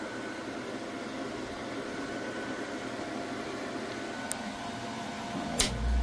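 Steady machinery hum, with a light click about four seconds in. Near the end a sharp relay click as the fixed-speed heat-pump water heater's compressor kicks on, bringing in a strong, steady deep hum.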